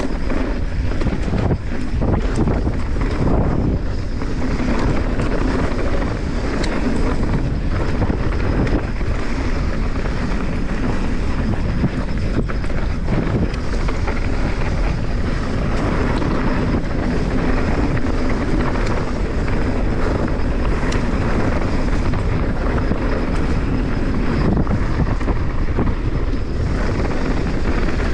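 Wind buffeting the microphone as a mountain bike runs fast down a dirt trail, with the tyres rolling over dirt and stones and many small knocks and rattles from the bike over bumps, without a break.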